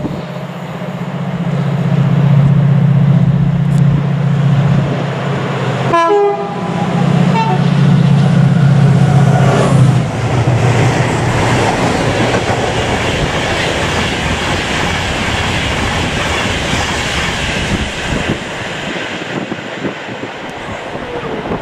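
Convoy of diesel locomotives (Class 68, Class 37 and two Class 57s) running light: first a steady low engine drone as they approach, then a short horn blast about six seconds in, followed by the loud running of the engines and wheels on rails as they pass close by, easing off toward the end.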